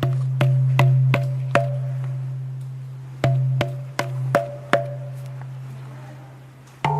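Ambient relaxation music: a steady low drone under sharp, drip-like plinking notes, about ten in two groups with a short pause between them. A new chord of sustained tones comes in at the very end.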